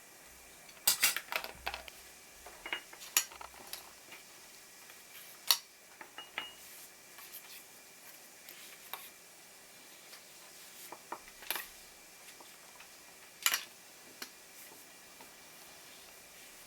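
Scattered light clicks and knocks of kitchen utensils against dishes, a quick cluster about a second in, then single sharper clinks at irregular intervals.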